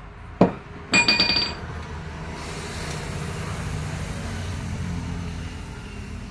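Metal tools knocking on engine parts: a short knock, then a ringing metal clank about a second in. After that comes a steady low mechanical hum.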